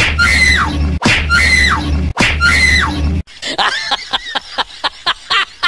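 A high scream sound effect played three times in a row, identical each time, each about a second long and rising then falling in pitch over a low hum. Then, a bit past halfway, comes a rapid run of short sharp pulses, about five a second.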